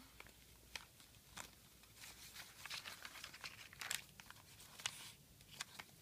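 Faint rustling and crackling of coffee-dyed, crinkled paper journal pages being turned and smoothed by hand. The crackles are busiest about two to three seconds in, with a sharper crackle near four seconds.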